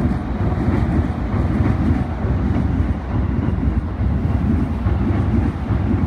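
Electric commuter train on the Keikyu Line passing close by at the level crossing: a loud, steady rumble of wheels on the rails with uneven pulses, dropping away at the very end.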